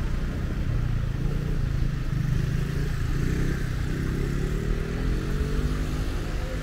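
A road vehicle's engine running steadily, then accelerating with a rising pitch from about halfway through.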